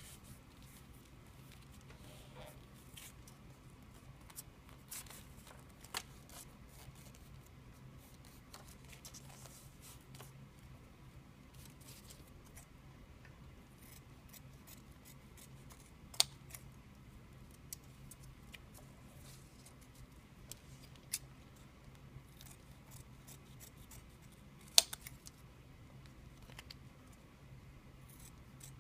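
Scissors cutting through doubled-over duct tape, trimming arrow fletchings to shape. Scattered short, sharp snips come over a faint steady hum, and two of the snips are much louder than the rest.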